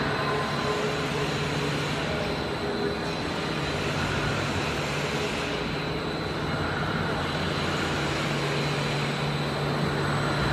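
HDPE pipe extrusion line running: a steady machinery hum with a constant high-pitched whine over it.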